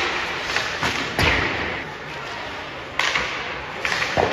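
Ice hockey shooting drill: several sharp cracks of sticks firing pucks and pucks striking the boards, spaced irregularly over a few seconds, each with a short hissing tail.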